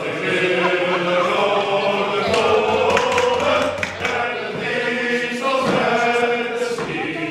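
A group of protesters chanting together in unison, several voices holding sustained pitches.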